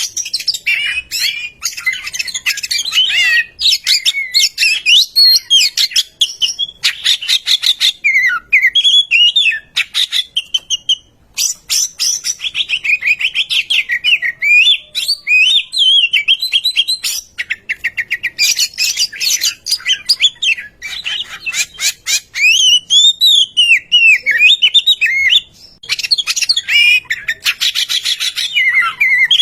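Oriental magpie-robin singing a fast, varied song of whistled glides mixed with runs of rapid rattling ticks, with a couple of short breaks.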